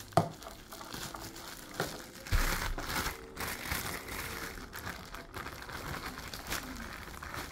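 Rustling and crinkling with scattered small clicks from a toddler's utensil and hands at a high-chair tray, and a dull knock about two and a half seconds in.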